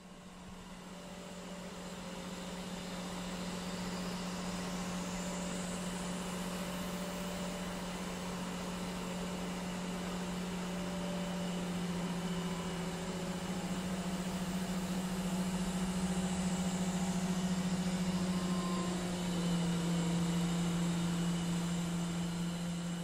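Diesel engine of a large truck-mounted mobile crane running steadily while its boom is worked, a low drone with a small shift in pitch and level about nineteen seconds in.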